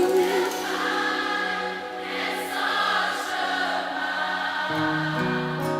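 Gospel song in a gap between the lead singer's lines: backing choir voices and sustained keyboard chords, changing chord about three-quarters of the way through.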